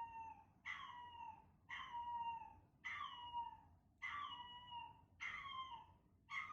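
Chihuahua puppy whining, a string of high-pitched cries about one a second, each sliding slightly down in pitch.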